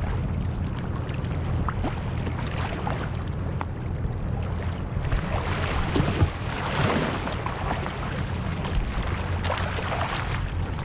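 Wind rumbling on the microphone over water splashing and lapping against a sea kayak as it is paddled, with a louder wash of water about six to seven seconds in.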